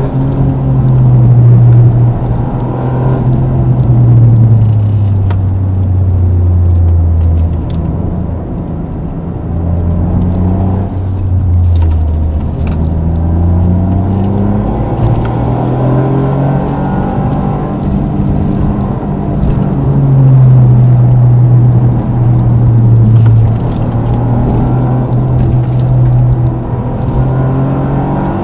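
Toyota GR sports car's engine heard from inside the cabin under way, its revs climbing and dropping repeatedly.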